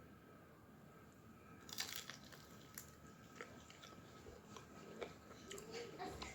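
Chicken wings being eaten: a bite with a cluster of sharp clicks about two seconds in, then scattered smaller mouth clicks while chewing.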